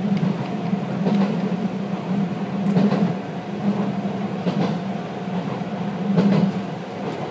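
Former Keio Inokashira Line 3000-series electric train running at speed, heard from inside, with a steady low drone under the wheels clacking over rail joints about every one and a half to two seconds.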